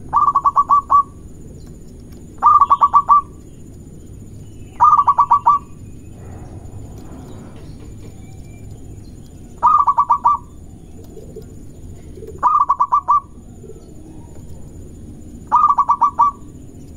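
Zebra dove (perkutut) cooing: six bursts of five or six quick, clipped notes each, repeated every few seconds.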